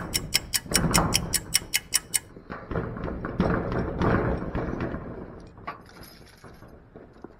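Corrugated steel roll-up storage door and its sliding latch being worked by hand, rattling and knocking. It opens with an even run of sharp clicks, about six a second, for roughly two seconds, then irregular rattles and knocks that fade.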